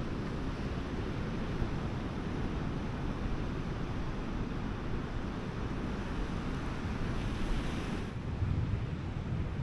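Wind buffeting the microphone over the steady wash of breaking surf. A brighter hiss swells and cuts off about eight seconds in, followed by a stronger gust of wind rumble.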